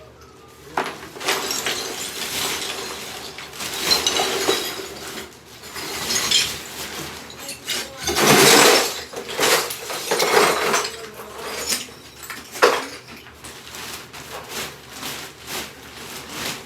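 Bathroom demolition: hard material being broken out, with irregular crashes, knocks and scraping. The loudest is a crash of about a second midway through, and a sharp single hit follows a few seconds later.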